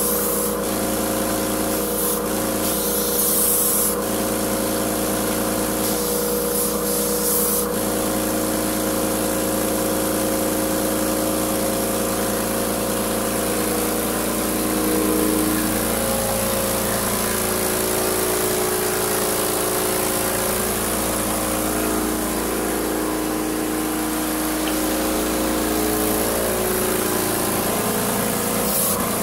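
Titan AirCoat air-assisted airless paint sprayer running: a steady hum of the pump and air compressor, with several tones that waver in pitch in the second half. The spray gun's hiss comes in short spells in the first several seconds and again near the end.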